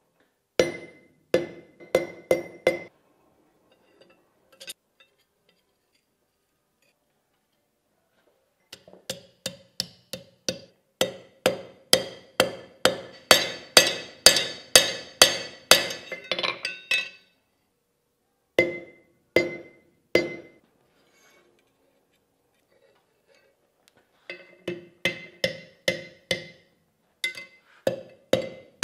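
Blacksmith's hand hammer striking hot steel on an anvil in bursts of blows, each strike ringing off the anvil. There is a short burst early, a long run of quick, steady blows in the middle, three blows a little later, and another run near the end.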